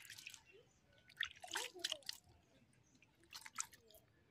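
Raw whole fish being washed by hand in a steel dish: water from a mug dribbles and splashes over them in three short bursts of wet splashing and dripping, with quiet between.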